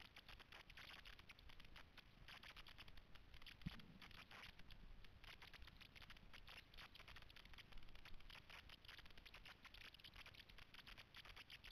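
Faint, dense scratching and scraping of a hiker moving over gritty sandstone, with a single soft thump a little over three seconds in.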